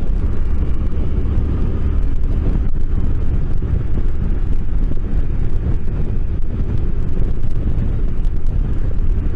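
Steady wind noise on the microphone of a motorcycle at road speed, mixed with the running of a Suzuki Boulevard C50T's V-twin engine.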